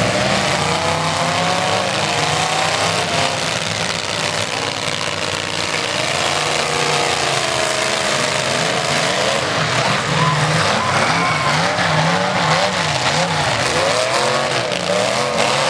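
Several demolition derby cars' engines running and revving through open exhaust pipes, their pitch rising and falling as the drivers throttle up and back off, over a steady wash of noise.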